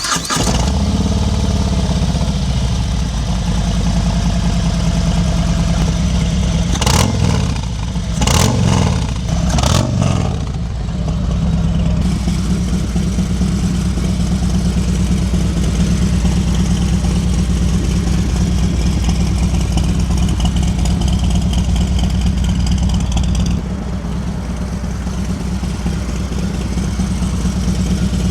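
Harley-Davidson Street Glide V-twin running through a Bassani Road Rage 3 two-into-one exhaust, idling steadily with three quick throttle blips about a third of the way in; the bike is not yet tuned for the new exhaust.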